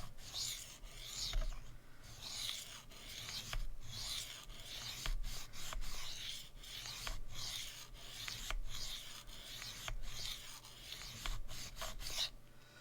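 Steel knife blade stroked back and forth across a diamond sharpening plate, a rasping scrape about once a second, as the edge is reprofiled and the burr worked off.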